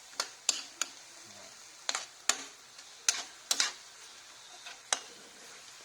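Beef, garlic and whole peppercorns sizzling in a pan, with a steady frying hiss, while a utensil stirs them with irregular clicks and scrapes against the pan.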